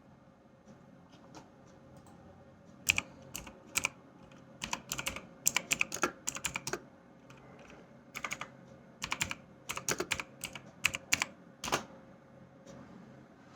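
Irregular clusters of sharp clicks and taps, bunched most thickly between about three and twelve seconds in.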